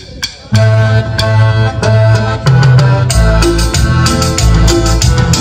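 A band's dance number starting about half a second in: electronic keyboard chords over a bass line, with steady percussion ticks, and a deep bass drum joining about three seconds in.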